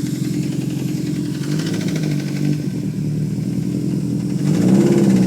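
2005 Subaru Impreza WRX STi's turbocharged flat-four engine running with a rapid, regular knock, which the owner believes is rod knock, or else a spun bearing. Near the end the engine revs up briefly.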